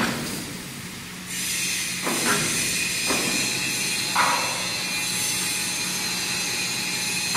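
Overhead crane running as it lifts and carries a long steel beam on slings: a steady mechanical hiss and hum, with three short sharper noises about two, three and four seconds in.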